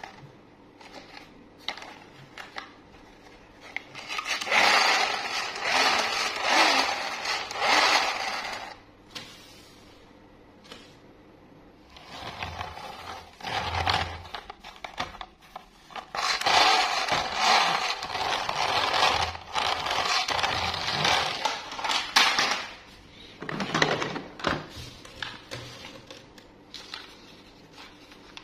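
Clear plastic toy high-speed train's wheels and gears whirring and rattling as it is run along a table, in several bursts of a few seconds each, the longest about six seconds.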